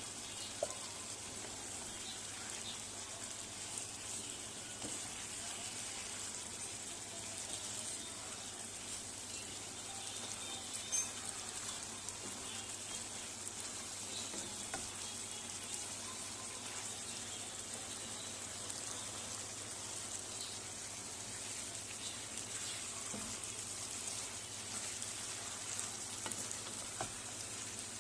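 Chicken curry frying in a pan: a steady sizzle, with a few light clicks and one sharper tap about eleven seconds in.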